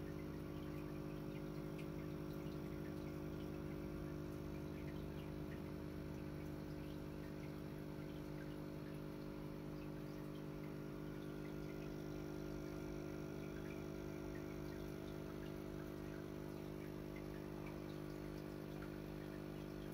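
Aquarium filter running, freshly cleaned: a steady low electric hum with faint trickling of water.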